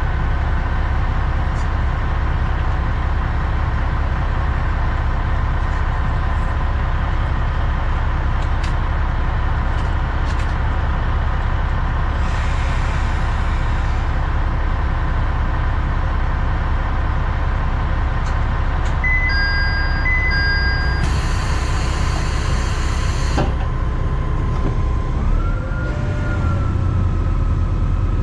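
KR301 diesel railcar (ex-Shigaraki SKR300) idling while stopped, a steady low engine rumble with a constant whine. A short two-tone beeping comes about two-thirds in, a burst of hiss soon after, and near the end the engine note rises as the railcar starts to pull away.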